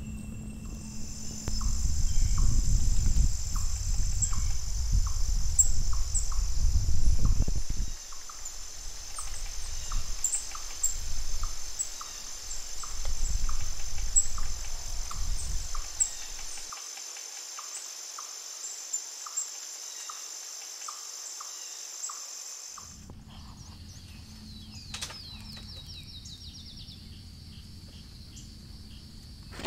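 Steady high chorus of night insects, with a soft call repeating about once a second. Gusts of low rumbling noise over the first half are the loudest sound. Near the end the chorus changes to a lower steady tone, with a few short bird chirps.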